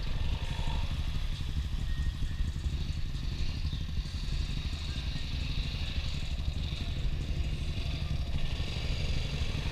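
ATV engines running steadily at idle, an even low engine pulse with no revving.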